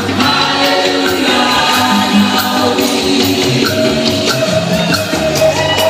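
Live gospel band playing through a loud sound system, with sung vocals and choir-like backing voices over drums, keyboard and hand percussion, keeping a steady beat.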